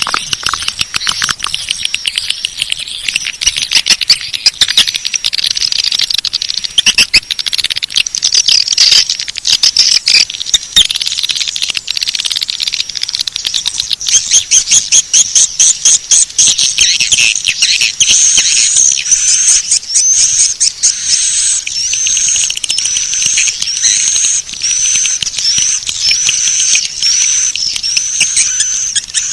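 Swiftlet call track used to lure swiftlets to a nesting house: dense, fast twittering and clicking chirps. From about halfway on, a steady run of repeated high chirps, roughly one to two a second.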